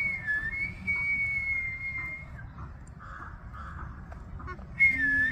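A high whistle holding nearly one pitch, with a brief dip near the start, for about two seconds; it stops, then starts again near the end.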